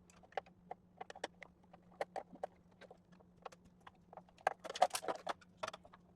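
Irregular hard clicks and knocks of metal and plastic parts of a scrapped electrical panel being handled, with a quick clattering run about four and a half seconds in.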